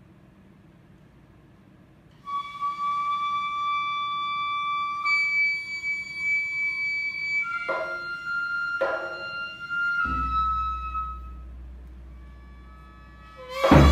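Ryūteki, the gagaku bamboo transverse flute, plays a solo opening phrase in long held notes, starting about two seconds in and leaping up an octave. Two short knocks come in the middle and a low hum joins. Just before the end the full wind ensemble, reedy hichiriki and shō mouth organ, comes in loudly.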